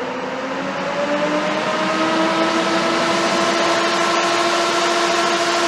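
Two Noctua NF-F12 iPPC 3000 RPM fans on a CPU tower cooler spinning up to full speed. A loud rush of air with a whine of several pitches that rises about a second in, then holds steady.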